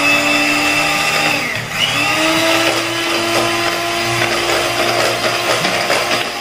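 Electric hand mixer running, its twin beaters whisking two eggs in a plastic bowl until foamy. The motor's whine dips briefly about one and a half seconds in, then settles a little higher.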